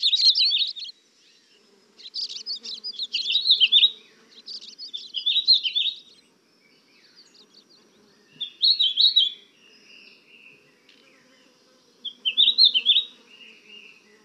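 Songbirds chirping in quick, high-pitched trilled phrases, in about five bursts separated by short pauses.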